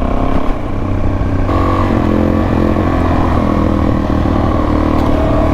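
Suzuki DR-Z400S single-cylinder engine running while riding, its note stepping up about a second and a half in and then holding steady.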